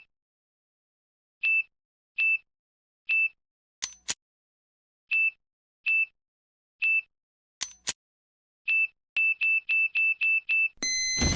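Electronic beeping sound effect: short single-pitch beeps, spaced out at first with two sharp clicks among them, then speeding up to about four a second near the end. It finishes in a steady high chord of tones, like a countdown timer running out.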